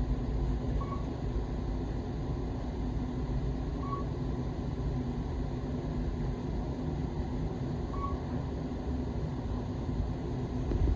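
Kone elevator running, a steady low rumble of the car in travel, with three short faint beeps about four seconds apart.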